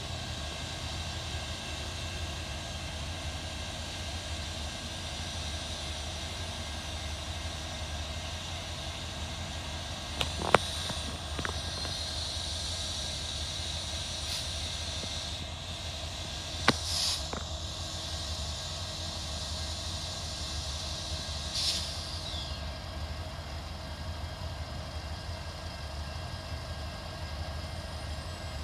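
Diesel locomotive switching cars in a rail yard, heard from a distance as a steady low rumble. A few sharp metallic clanks come about ten and seventeen seconds in, and brief high squeals near seventeen and twenty-two seconds.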